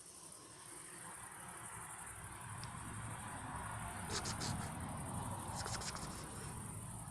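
Honeybee colonies humming in their hives at night during a strong nectar flow, the low hum growing louder partway through, over the steady high-pitched chirring of crickets. Short bursts of closer cricket chirps come twice in the second half.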